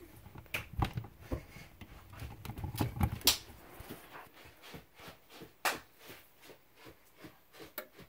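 Plugging-in knocks and clicks as the fire alarm control panel's power cord is pushed into the wall outlet. A little before six seconds in, a single sharp click from the AutoPulse 542R panel's relay as AC power is restored. Faint ticking, about three a second, runs through the second half.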